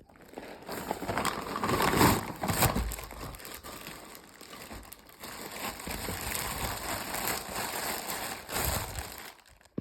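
Parcel packaging being handled and opened by hand: continuous crinkling and rustling, loudest about two seconds in.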